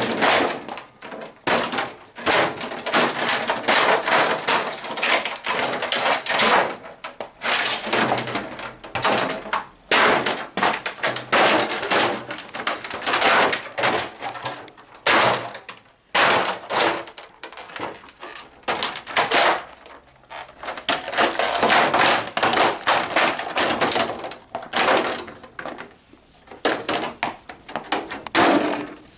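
A 1/5-scale radio-controlled car being smashed: a long run of hard, rapid blows on its plastic body and chassis, with cracking and breaking plastic, broken by a few short pauses.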